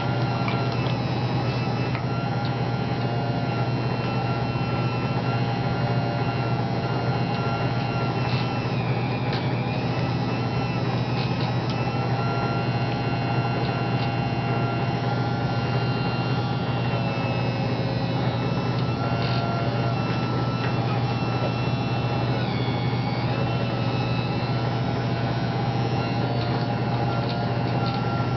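Small electric motors of radio-controlled construction models running steadily, a constant hum under several whines that dip and shift in pitch as the machines work.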